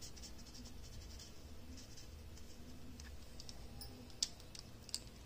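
Felt-tip sketch pen scratching on paper, quick back-and-forth colouring strokes, faint. A few sharp clicks near the end.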